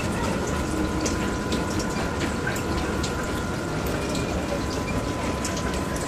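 Steady rushing noise like running water, with a faint steady high tone and scattered small clicks over it.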